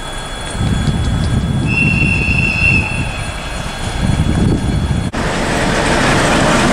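ChME3 diesel-electric shunting locomotive approaching with its engine rumbling low, and a brief high wheel squeal on the curve about two seconds in. After an abrupt cut about five seconds in, louder steady engine and rail noise as the locomotive passes close.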